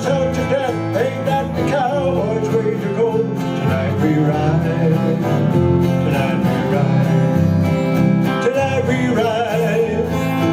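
A small band playing an instrumental break: strummed acoustic guitar over electric bass notes, with an electric guitar playing along, in a country style.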